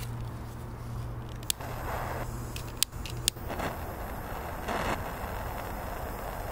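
Handling noise as a firework rocket is fitted into holes in a plastic toy bulldozer: a few sharp clicks and short scraping rustles, over a faint steady low hum.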